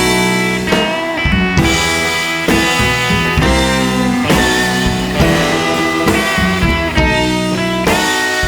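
Background music: guitar-led rock with a drum kit and a steady beat.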